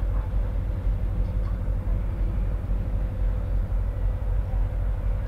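Passing ferry's engines running: a deep, steady rumble that swells and dips, with a constant hum above it.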